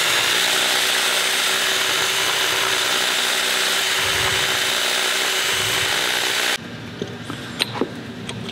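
Cordless drill running steadily while the side of its bit grinds a bolt hole in an air-filter intake adapter out into a slot. The drill stops suddenly about six and a half seconds in, followed by a few light clicks as the part is handled.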